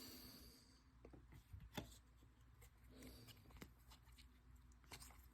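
Near silence with a few faint clicks and light rustles of trading cards being handled.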